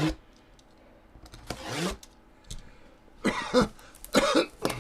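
A man coughing and clearing his throat, several short bursts.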